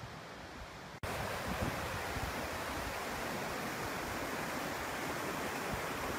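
Steady rush of a waterfall cascading over boulders, which becomes suddenly louder about a second in.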